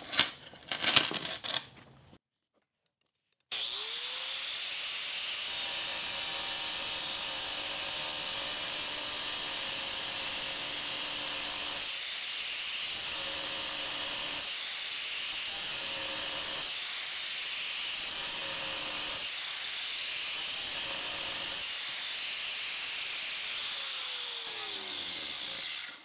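Handheld angle grinder with a diamond blade spinning up about three seconds in and plunge-cutting into the back of a ceramic tile. Its sound changes briefly every few seconds as the blade is pulled out and pushed back into the cut, and it winds down near the end.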